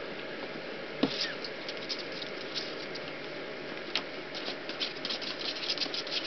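Rat Terrier puppy's claws scrabbling and clicking on the hard plastic wall of a kiddie pool as it climbs out, a quick run of small clicks in the second half. A single knock about a second in.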